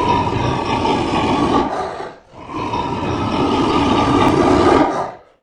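Crocodile growling in two long, noisy breaths, the first about two seconds and the second about three, with a short break between them.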